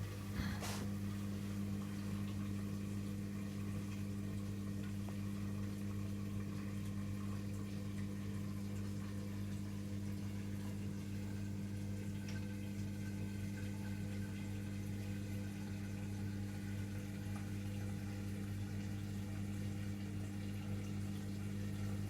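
Washing machine on a synthetics warm wash, giving a steady electric hum with water running through it. There is a brief click about half a second in.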